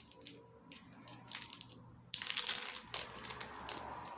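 Small clear plastic packet crinkling in the fingers as it is handled and opened: a few light clicks, then a sudden burst of crackling about two seconds in that carries on more softly.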